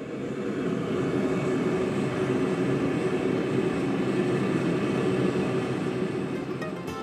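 Two-burner propane gas forge running, its burners making a steady rushing noise that fades in over the first second.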